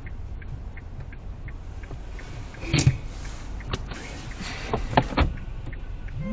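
Knocks and scratches of husky dogs' paws on the car's bonnet, heard from inside the cabin over a steady low rumble. The loudest knock comes about three seconds in, with a few lighter ones after it.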